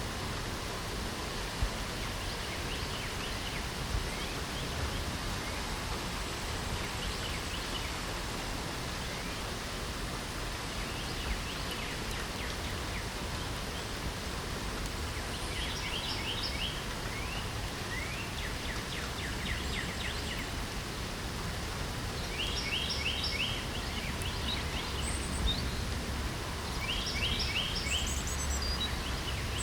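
Steady rain hiss with birds singing over it: short, rapid trilled phrases repeated every few seconds in the second half, with a few high chirps, over a low rumble.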